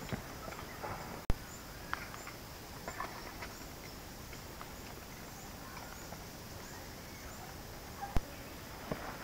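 Outdoor ambience with a faint, high chirp from a small animal repeating about twice a second, over steady background noise. Scattered light knocks come through it, with two sharp clicks, one about a second in and one near the end.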